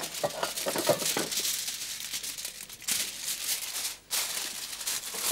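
Aluminium foil crinkling and crackling as it is crumpled and pressed down over a dish, with a brief pause about four seconds in.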